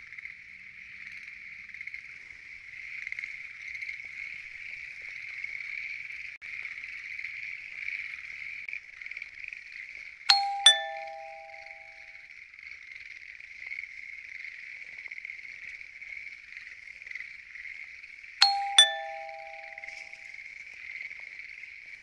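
A dense chorus of calling tree frogs, steady throughout. Twice, about ten seconds in and again about eighteen seconds in, a two-note falling chime sound effect rings out over it, louder than the frogs.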